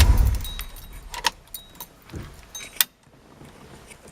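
1974 Plymouth Duster's engine being switched off, its low running dying away within the first half second. Then a few light clicks and jingles from the ignition keys.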